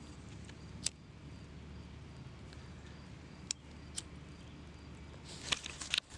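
A few faint, sharp clicks over a low, steady background noise: one about a second in, two more a little past the middle, and a short cluster near the end. They come while small lady-finger-type firecrackers are being lit, before they go off.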